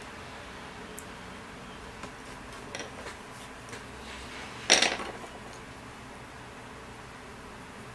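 Colored pencil working on a sketchbook page with a few light ticks, then about halfway through one sharp clack with a short rattle on the wooden tabletop as the pencils are swapped and the spiral sketchbook is turned.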